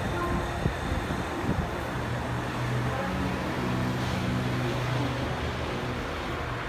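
Street traffic noise, with a motor vehicle's engine running as a steady low hum for a few seconds in the middle, and a few light knocks near the start.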